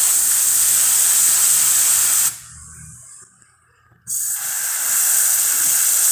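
Garden hose pistol-grip spray nozzle hissing as it sprays water onto the soil in a plant pot. The spray cuts off a little over two seconds in and starts again about four seconds in.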